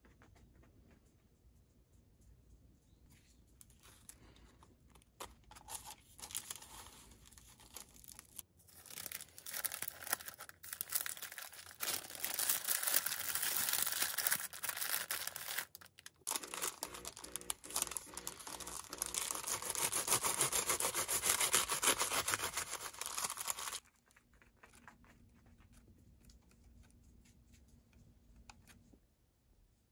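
Baking paper crinkling and rustling as it is folded and wrapped tightly around a sandwich by hand. Softer handling sounds come first; the crinkling is loud, with a short break about halfway, and stops abruptly about three-quarters of the way through.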